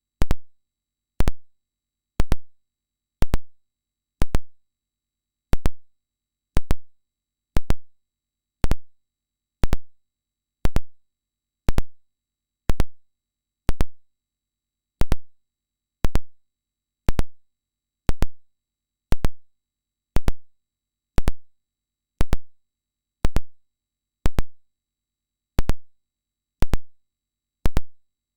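Sharp electronic ticks about once a second, the clicks of a hearing-test tone switching on and off, with the tone itself too high to show in the recording.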